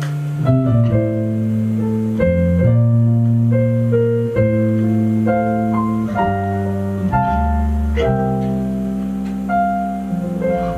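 Live band music with no singing: a keyboard playing sustained piano chords that change about once a second over a steady bass line.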